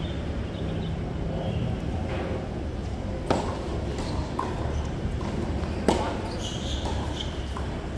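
Tennis ball struck by rackets during a rally: two sharp hits about two and a half seconds apart, with fainter ticks between them, over steady background noise.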